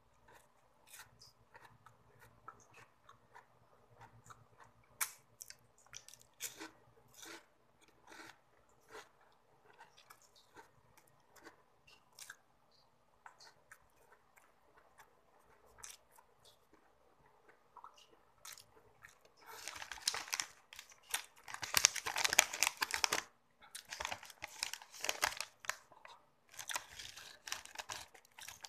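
Close-up chewing of chocolate snacks, with scattered small wet mouth clicks. From about two-thirds of the way in, a plastic snack wrapper being torn open and crinkled in several loud spells, the loudest sound here.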